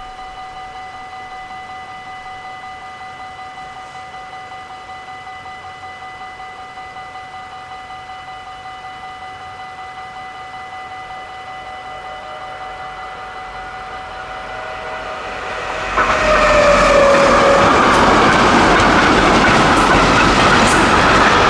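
Dutch level-crossing warning bell ringing rapidly and steadily while the barriers are down. About 16 seconds in, a container freight train reaches the crossing and passes loudly, with rail clatter, drowning out the bell.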